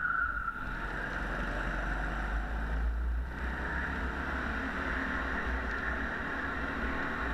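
Go-kart engine running steadily at speed, heard from on board the kart, with a low rumble under a constant noisy drone.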